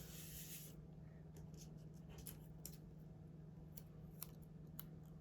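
Faint, scattered snips of small scissors cutting sticker paper, after a brief papery rustle at the start.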